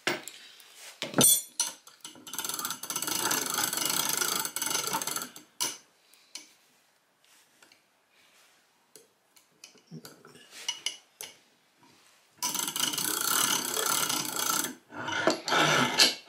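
Homemade plywood clock mainspring winder being worked by its crank handle: two stretches of steady mechanical rattling from the turning threaded-rod mechanism, with scattered clicks and knocks between them and near the end.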